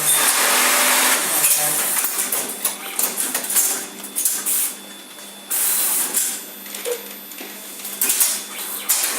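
Automatic back-pocket setting sewing machine running with a steady hum and metallic clattering. Loud bursts of noise come at the start, about halfway through and near the end.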